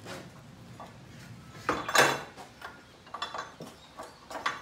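Metal clanking and rattling from hand tools and loose parts against the steel frame of a flatbed truck's cargo bed. The loudest clank comes about two seconds in, with a few more near the end.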